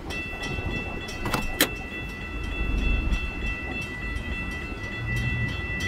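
Railroad grade crossing bell ringing steadily in quick, regular strikes as the crossing gates rise, over a low rumble. A single sharp click about a second and a half in.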